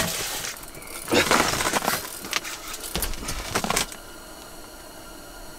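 Rustling and clattering of clothing and fishing gear as an ice angler jerks his rod up to set the hook and stands up, in a string of short noisy bursts and clicks. It goes quieter for the last second and a half.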